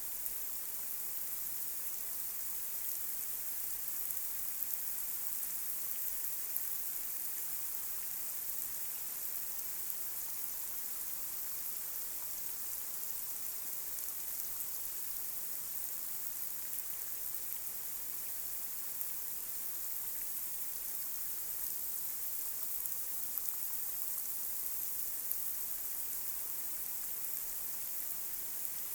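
Light rain falling on a street: a steady high hiss with scattered small drop ticks.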